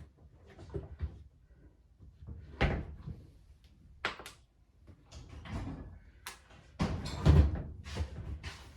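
Irregular knocks, bumps and scraping of hands and tools working on a front-loading washing machine's door and seal area, with a heavier thud about a third of the way in and the loudest cluster of knocks near the end.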